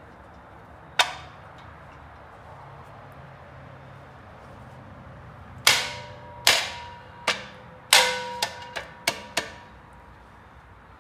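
Sharp metal-on-metal clanks from tool blows on a Chevrolet small-block V8 engine, each ringing briefly. One comes about a second in, then a run of about eight irregular strikes in the second half.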